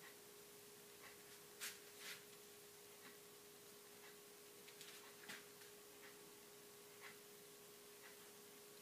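Near silence: room tone with a faint steady hum and a soft tick about once a second, plus a few faint rustles.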